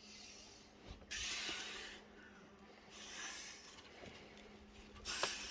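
Three forceful, hissing exhalations, each about a second long, from a climber straining through hard moves on a boulder problem.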